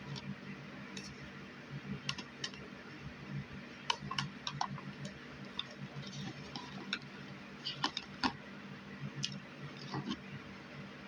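Light, irregular clicks and taps of small items being handled and set into a basket, over a steady low hum.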